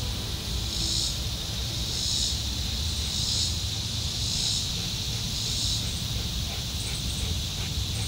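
Insects calling: a high-pitched pulsing call repeating about once a second, which stops about two-thirds of the way in, over a steady low rumble.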